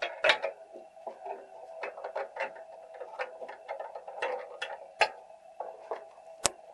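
Irregular light clicks and knocks, several a second at times, over a steady mid-pitched hum, with sharper knocks about a third of a second in, about five seconds in and one near the end.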